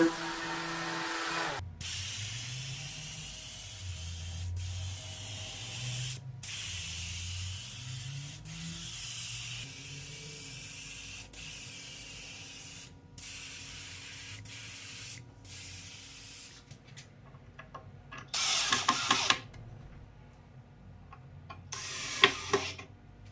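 A random orbital sander runs for about a second and a half, then cuts off. A compressed-air spray gun then sprays paint in long hissing bursts, broken by brief pauses where the trigger is let go. Near the end come two short, louder bursts.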